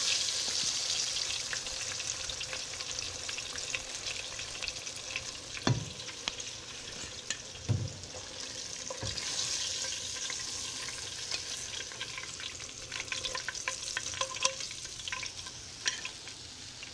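Floured fish pieces frying in hot oil in an enamelled cast-iron pot, with a steady sizzle. A few sharp knocks come about six, eight and nine seconds in, as metal tongs lift pieces out onto a plate.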